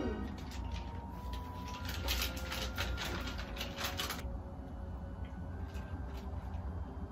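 Kebab wrapper crinkling and rustling as it is unwrapped by hand: a dense run of crackles about two to four seconds in, then only a few soft clicks.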